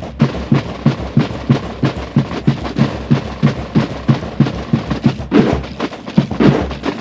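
Military band drums beating a steady march rhythm, about three strokes a second, with a quicker, brighter flurry of strokes a little after five seconds in.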